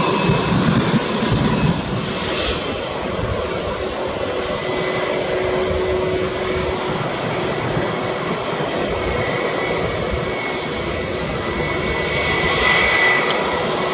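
Twin jet engines of an airliner roar loudly just after touchdown; about two seconds in this gives way to the steadier whine of a Tigerair Taiwan Airbus A320's engines as it taxis, with a high steady tone over the rumble that swells briefly near the end.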